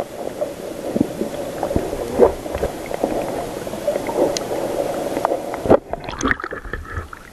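Muffled underwater noise picked up by a camera in its waterproof housing: churning water with irregular clicks and knocks, and a louder knock about six seconds in.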